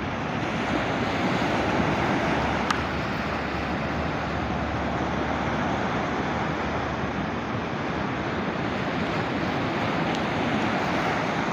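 Sea surf: choppy waves breaking and washing onto the shore in a steady rush.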